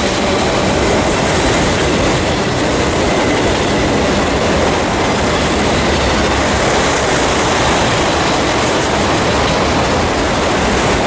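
Westbound freight train of auto rack cars rolling past close by: a loud, steady rush and rumble of steel wheels on rail, with a faint high wheel squeal running through it.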